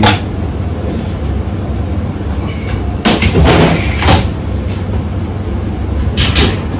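Steady low rumble of commercial kitchen ventilation, with clatters of metal kitchenware and equipment about three seconds in, again a second later, and near the end.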